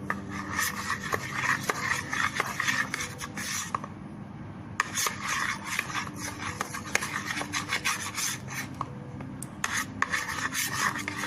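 A stirrer scraping and rubbing around a container while mixing glue, black poster paint and silver glitter into a slime base, in irregular scratchy strokes.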